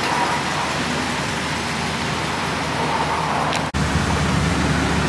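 Steady outdoor roadway traffic noise. About two-thirds of the way through it cuts abruptly to the steady low drone of a U-Haul box truck's engine and road noise, heard from inside the cab.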